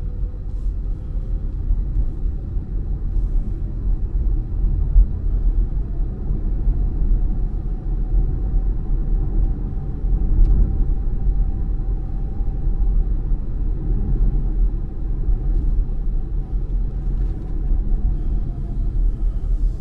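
Steady low road and tyre rumble heard inside the cabin of a moving Volvo XC40 Recharge, with a faint whine that rises slowly and falls back.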